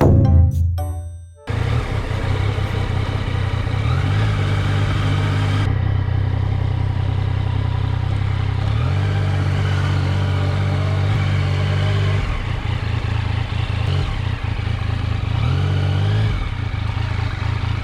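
Yamaha MT-09's three-cylinder engine running on the move, its note stepping up and down a few times with throttle and gear changes.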